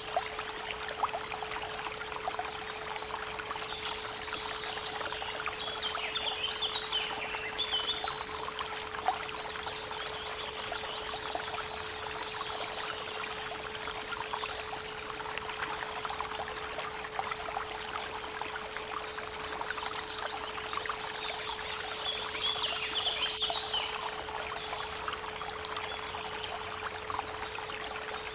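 Creek water running steadily with birds singing now and then, layered with a constant 432 Hz pure tone.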